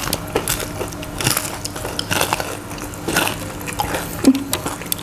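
Biting into and chewing spicy fried chicken, with irregular sharp crackles from the mouth.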